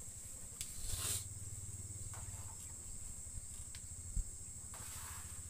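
Steady high-pitched insect drone, crickets or cicadas, over a low steady hum, with a few light clicks and one sharper knock about four seconds in.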